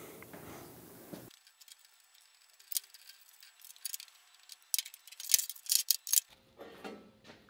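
Light metallic clicks and clinks of a steel hinge bolt and washers being taken apart by hand and set down on a steel welding table, scattered and irregular, thickest a few seconds in.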